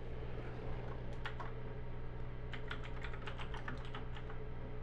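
Typing on a computer keyboard: short, irregular key clicks, a few about a second in, then a quick run through the middle and latter part, over a steady low hum.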